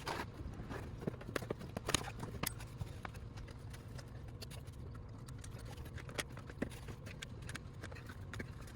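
Irregular light clicks and knocks of tools and parts being handled during reassembly under the car, over a steady low hum.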